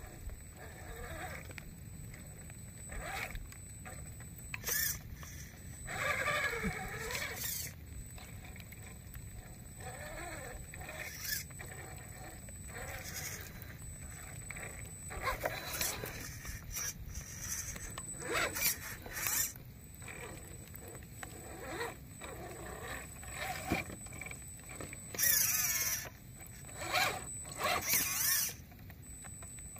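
Electric motor and gear drive of an RC scale crawler whining in irregular bursts that rise and fall in pitch as it is throttled up a muddy, rocky slope. There are a few louder, noisier bursts near the end.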